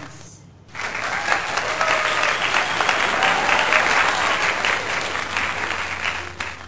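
Crowd applause, starting abruptly about a second in and cutting off sharply near the end.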